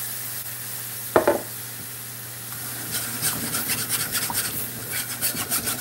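Wire whisk scraping rapidly against the bottom of a cast-iron skillet, beating liquid into a browned flour roux for gravy, starting about three seconds in. Before that a steady hiss from the pan and a single clunk about a second in.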